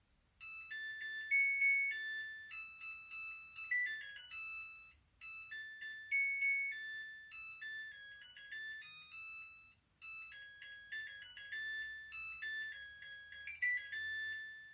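A washing machine's electronic end-of-cycle tune: a melody of high beeping notes that starts about half a second in and repeats its phrase about every five seconds, the signal that the wash has finished.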